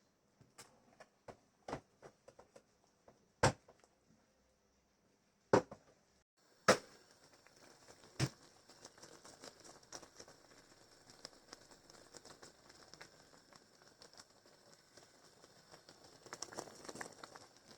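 Kitchen sounds while cooking: sharp knocks and clicks of utensils, several of them loud, then from about seven seconds in a steady crackling with many small clicks that grows louder near the end.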